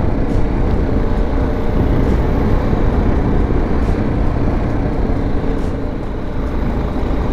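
BMW G310GS single-cylinder motorcycle engine running steadily on the move, mixed with steady wind and road noise.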